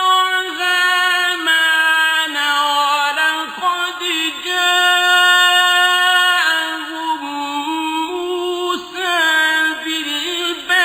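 A man chanting Quranic verses in a melodic recitation style, holding long high notes and sliding between pitches in ornamented runs, with brief pauses for breath between phrases.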